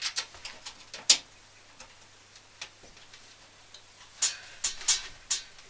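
Irregular sharp clicks and light knocks of hardware being handled while closing up a desktop PC case: one loud click about a second in, then a quick cluster of four near the end.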